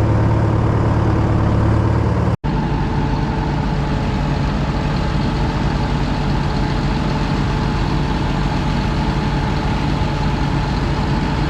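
Tractor engine running steadily. About two seconds in, the sound breaks off for a split second and comes back with a different engine note.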